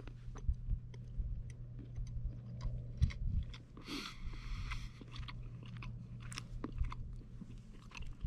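Close-up chewing of a thick dark chocolate bar, with many small wet clicks and crunches from the mouth. There is a short breath about four seconds in.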